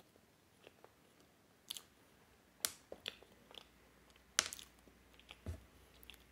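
Close-miked chewing of a Dutch eierkoek filled with whipped cream and topped with freeze-dried strawberry: a scatter of sharp, wet mouth clicks and small crunches, the loudest a little over four seconds in.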